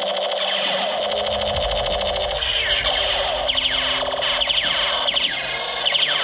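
Electronic toy space gun sound effects: a fast pulsing buzz, then from about two seconds in, a string of zaps that sweep downward in pitch.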